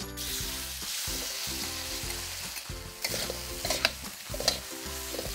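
Marinated chicken strips sizzling as they are tipped into a hot, lightly oiled wok and stir-fried. A metal ladle scrapes and clicks against the wok now and then in the second half.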